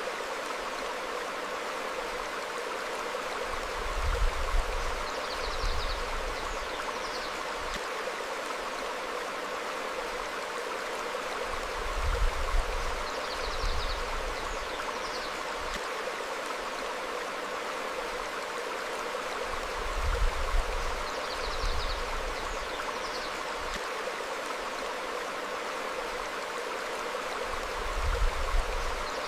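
Stream flowing steadily over rocks, with short high bird chirps in small groups. A low rumble swells and fades about every eight seconds and is the loudest thing heard.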